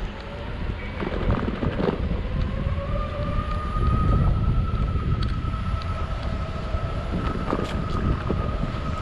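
Metroboard electric skateboard motor whining at speed, its pitch rising about two and a half seconds in and then holding steady, over heavy wind rumble on the microphone and a few short knocks.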